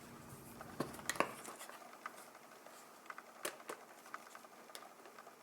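Puzzle box being handled, its sliders pushed into position: a few faint scattered clicks and taps.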